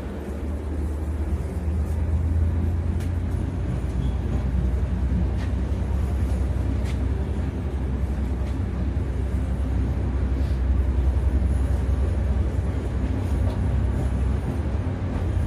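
Passenger train running, heard from inside the carriage: a steady low rumble with a few faint clicks and rattles.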